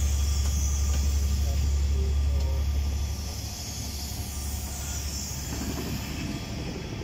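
Train of Pullman coaches rolling past at a platform, wheels running on the rails, with a steady deep hum that drops away about three seconds in.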